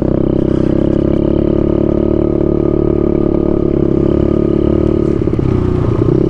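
Pit bike engine running steadily at part throttle while being ridden, close up; about five seconds in the engine note wavers as the throttle is worked, then steadies.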